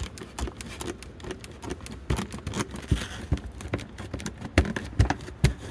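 Wooden wall shingles knocking and clacking as a hand pushes and taps on them: a run of irregular knocks, louder and deeper near the end. The shingles give and rattle because the wall sheathing behind them is rotted.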